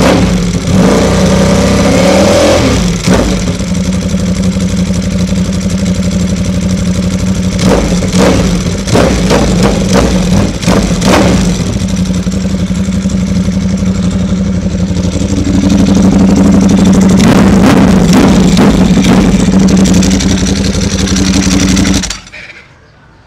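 Ducati Panigale V4 engine running through an Akrapovic full exhaust system with baffled end cans. It idles with a rising rev about two seconds in and a few short throttle blips, then is held at higher revs for several seconds and is switched off shortly before the end. Its owner calls the exhaust note just right and not too loud.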